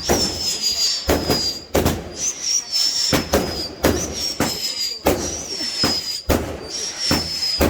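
Fireworks going off in quick succession: a string of sharp bangs mixed with high whistles, each whistle lasting about a second and sliding slightly down in pitch.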